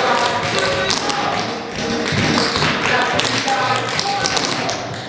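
Tap shoes striking a hardwood floor in quick rhythmic patterns as a troupe dances together, over recorded music.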